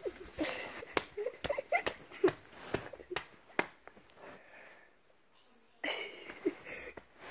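A person's voice in short breathy sounds and sniffs, no clear words, with several sharp clicks among them. A breathy hiss about six seconds in.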